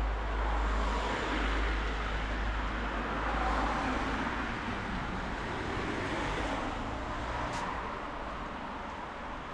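Road traffic passing on a wet city street: tyre hiss and engine rumble, swelling about three to four seconds in and easing off near the end.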